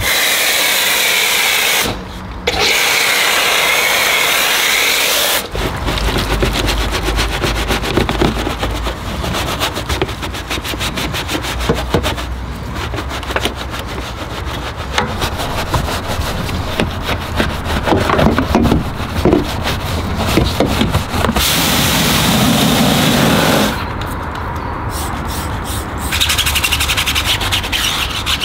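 Rubbing and scrubbing on a car's bodywork during a hand wash, a scratchy sound made of many quick strokes. It is broken by stretches of steady hiss at the start, about 22 seconds in and near the end.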